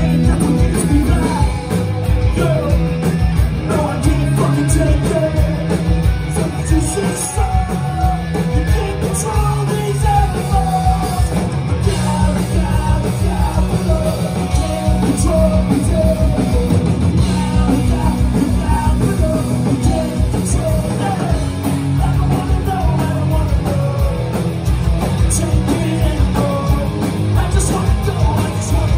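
Punk rock band playing live, with electric guitars, a steady drum beat and a sung lead vocal, heard from within the crowd.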